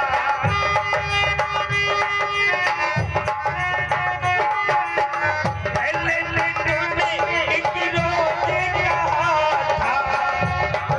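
Indian folk music with a hand drum keeping a beat under a melody. Held steady notes come early, and a wavering melodic line takes over in the second half.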